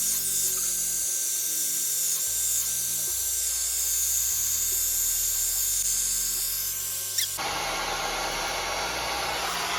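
Hot air brush (MiroPure 4-in-1 hair dryer brush) blowing steadily, a high airy hiss from its fan and vents. About seven seconds in the sound switches abruptly to a fuller, lower rush of air.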